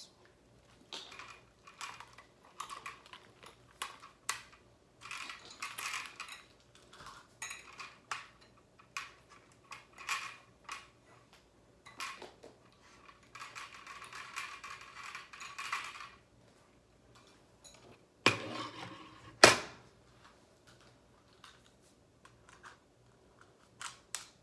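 Small objects being handled: scattered clicks, light clatter and rustling, with two louder knocks about eighteen and nineteen seconds in.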